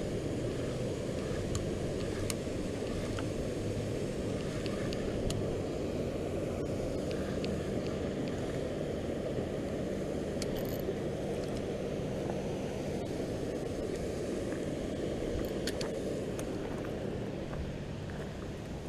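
Steady low rumble of wind on the microphone and moving water, with a few faint clicks scattered through.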